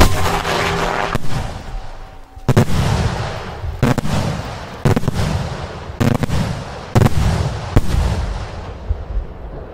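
Aerial firework bombs (salute shells): a loud launch blast from the ground mortar at the start, then a string of about seven or eight sharp, loud bangs roughly a second apart, each trailing off in a rumbling echo.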